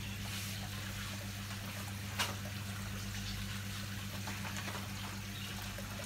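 Steady low electrical hum under a trickling-water hiss, with one short click about two seconds in.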